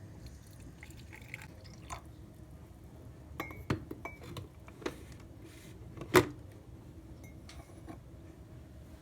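Clinks and knocks of glassware and dishes being handled. A few sharp knocks come between about three and five seconds in, a couple of them with a short ringing tone, and the loudest comes about six seconds in.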